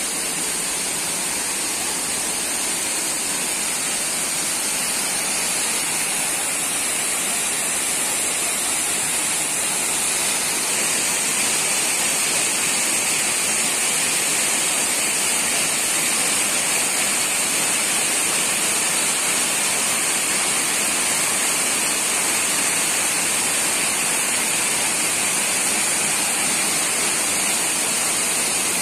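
Waterfall: water cascading over rock ledges and into a rocky stream, a steady rushing noise.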